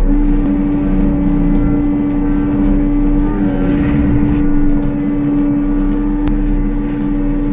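Heavy machine engine running steadily under load, with a constant high-pitched hum over a low rumble.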